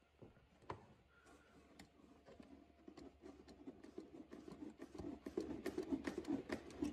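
Faint clicks from a 1955 Zenith Z-515W vacuum-tube clock radio switched off, then soft crackling from its speaker that grows denser over the last few seconds as the set comes back on.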